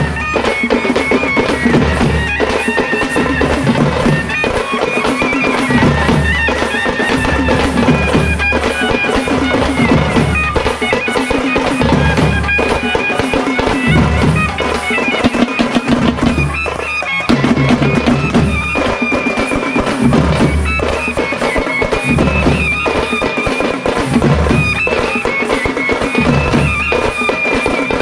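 Instrumental music: a high, reedy wind-instrument melody over drums and a low, pulsing bass beat.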